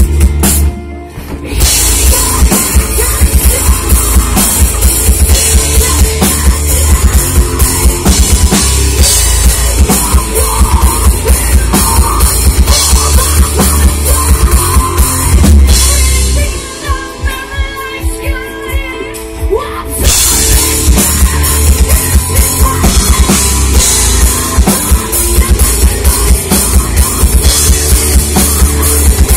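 Metal band playing loud live: drum kit, electric guitars and bass. There is a brief gap about a second in, and a little past halfway the drums and bass drop out for a few seconds before the full band crashes back in.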